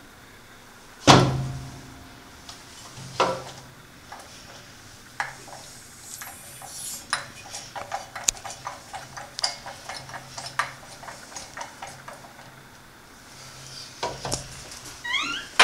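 A sharp metallic clank with a short ring about a second in and another about two seconds later, then a run of light metal clicks and taps as hoses and brass fittings are handled inside a compressor cabinet, over a faint low hum.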